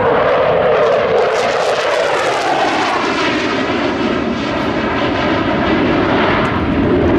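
JASDF F-15 fighter's twin F100 turbofan engines passing low overhead and climbing away: loud, continuous jet noise that sweeps and ripples in pitch as the jet goes by.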